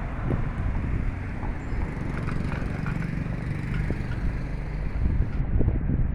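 Outdoor ambience: a steady low rumble with wind buffeting the microphone and a few faint clicks.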